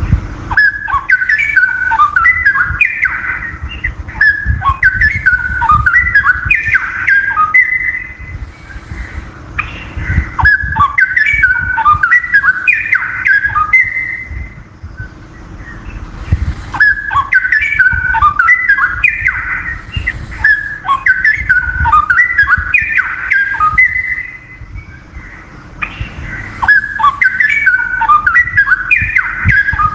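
Straw-headed bulbul (cucak rowo) singing loud phrases of rapid, bubbling warbled notes. Each phrase lasts several seconds, and there are four of them with short pauses between. A low rumble and a faint steady hum run underneath.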